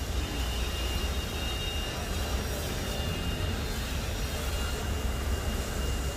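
High-pressure washer running steadily: a low rumbling drone with a thin high whine on top.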